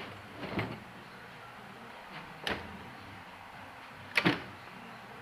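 Hard plastic router carrying case being opened and handled, giving three sharp plastic clacks. The loudest is a quick double clack about four seconds in.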